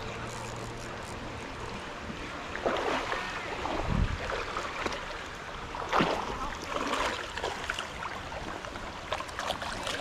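Creek water running, with irregular splashes from about two and a half seconds in as a hooked smallmouth bass is played close on a spinning rod.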